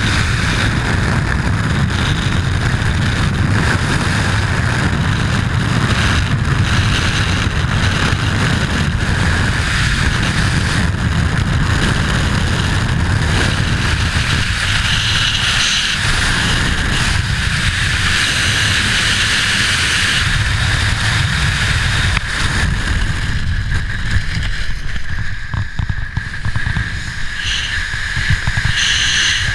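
Freefall wind rushing hard over a skydiver's helmet-camera microphone, a steady loud roar of noise. Near the end the rush dips and eases as the parachute opens.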